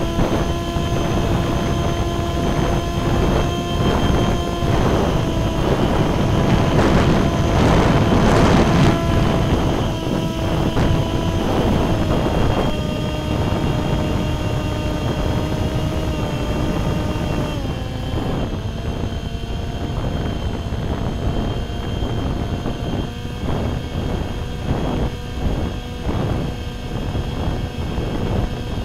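Small brushless electric motor and propeller of a sub-250 g RC plane, whining steadily in flight, with wind rushing over the onboard camera's microphone. The wind gusts louder about seven to nine seconds in. The motor's pitch steps down twice, about 13 and 18 seconds in.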